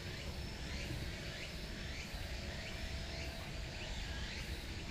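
Outdoor ambience: a steady low rumble and hiss, with short, high chirps repeating irregularly about twice a second from a small bird or insect.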